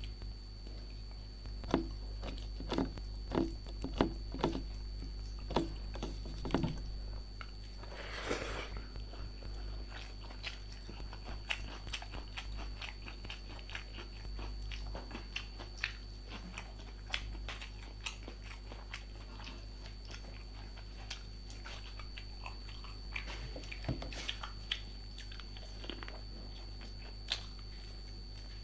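Close-miked mouth sounds of a person eating: crunchy bites and chewing, with a run of louder crunches over the first several seconds, then softer chewing and wet mouth clicks.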